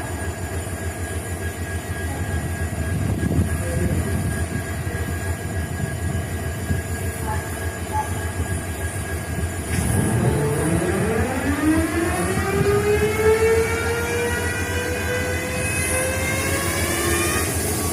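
EMD WDG4 (GT46MAC) diesel-electric locomotive with its 16-cylinder 710 engine running with a steady low rumble. About ten seconds in, a whine rises steeply in pitch and then levels off over several seconds as the twin unit is cranked and comes up to speed.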